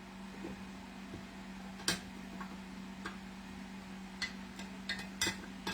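A utensil clicking now and then against a glass jar as beef broth is mixed, the clicks coming closer together near the end, over a steady low hum.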